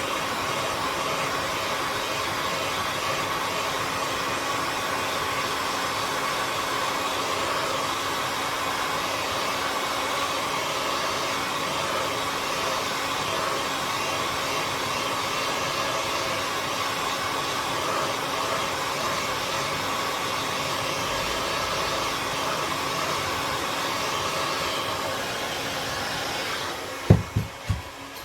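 Hot air gun blowing steadily, heating a phone's glued back panel to soften the adhesive. It cuts off about 27 seconds in, followed by three quick thumps.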